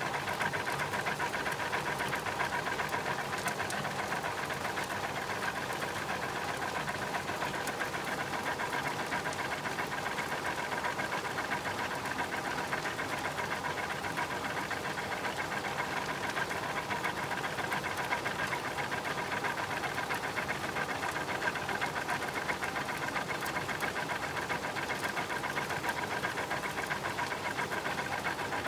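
Washing machine's belt and wheel mechanism running, recorded close: a steady, fast mechanical rattle with a constant hum.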